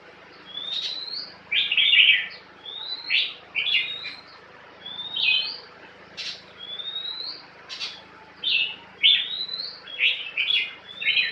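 Caged songbirds singing, with a short rising whistle followed by quick chattering notes, repeated about once a second.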